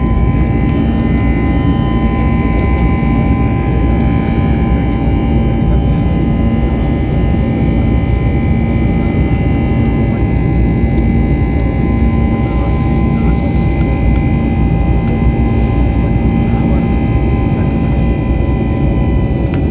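Steady cabin drone of an Airbus A320-family airliner's turbofan engines during the climb after takeoff, heard from a window seat. Several steady whining tones sit over the low rumble.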